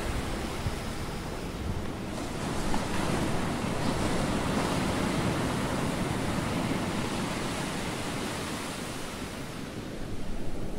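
Wind buffeting the microphone outdoors on a boat: a steady rushing noise with no distinct events, dipping slightly near the end.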